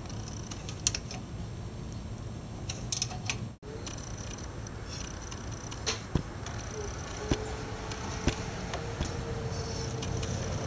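Small single-cylinder four-stroke engine of a replica Auto-ped scooter running steadily, with scattered sharp clicks over its low rumble. The sound cuts out for an instant about three and a half seconds in.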